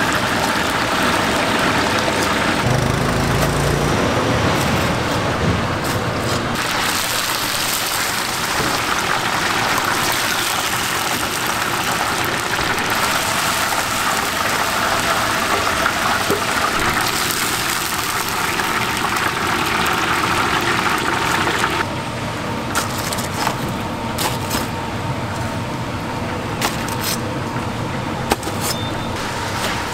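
Hot oil sizzling and crackling steadily as whole battered chickens deep-fry in a large wok, with metal tongs clicking against the pan. About two-thirds of the way through the sizzle thins out, and sharp clicks and knocks follow as the fried chickens are set on trays.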